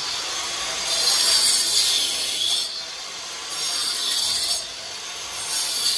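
Handheld angle grinder cutting into a brick wall: a harsh grinding whine whose pitch sags and recovers several times as the disc bites into the brick.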